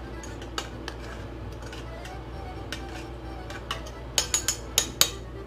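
Spoon stirring diced tomatoes in a stainless steel saucepan, clinking against the pot now and then, with a quick run of about five louder clinks about four seconds in.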